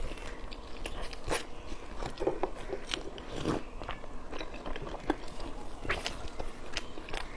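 A person chewing and biting food close to the microphone, with irregular moist clicks and small crunches.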